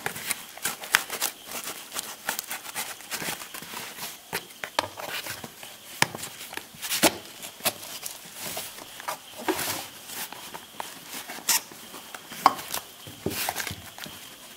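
Kitchen knife slitting plastic packing tape along the seams of a cardboard box, with irregular scrapes, taps and rustles as the box is handled and turned.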